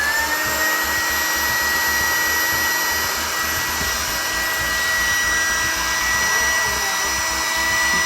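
Electric air pump coming up to speed with a rising whine, then running steadily with a high whine and rushing air as it inflates an airbed.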